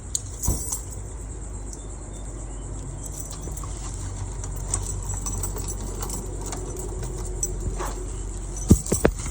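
A bunch of keys jangling over a steady low hum, with a few sharp clicks near the end.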